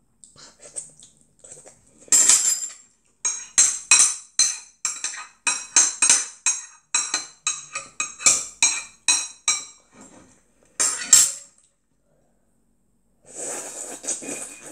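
Metal spoon clinking and scraping against a ceramic bowl in quick repeated strokes, about three a second, as the last of the jjamppong is scooped up. Near the end comes a longer slurping sound as the bowl is tipped up to drink the broth.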